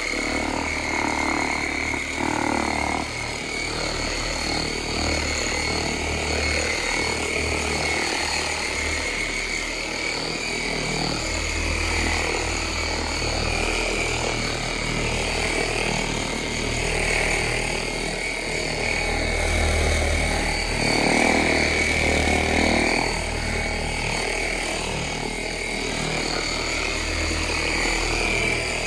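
Corded electric buffer with a wool bonnet pad running against a travel trailer's fiberglass siding, buffing out dried wax to a shine. The motor gives a steady high whine over a low hum, wavering slightly as the pad is pressed and moved.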